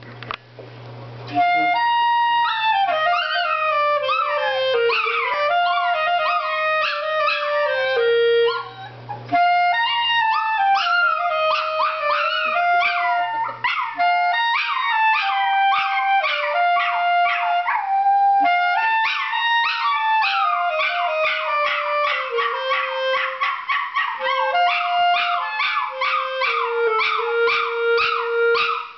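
A Chihuahua howling and yipping along with a clarinet playing a slow melody of held notes, its wavering cries rising and falling above the clarinet's line. Both break off briefly about eight and a half seconds in, then carry on.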